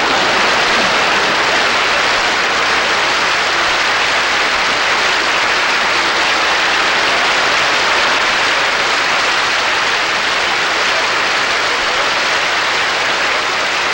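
A large audience applauding, a dense and steady wash of clapping that eases off slightly near the end.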